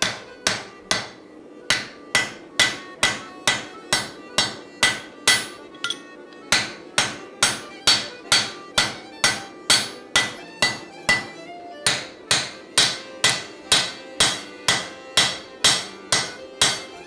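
Hand-held crosspeen hammer striking a red-hot steel axe billet on an anvil, about two blows a second with a short metallic ring after each, as the lugs around the axe eye are forged over a drift. There is a brief pause about six seconds in.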